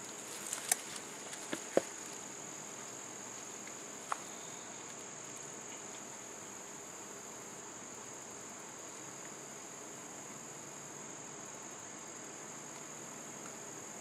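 Crickets trilling steadily in one unbroken high-pitched band. A few short clicks come in the first two seconds, with one more about four seconds in.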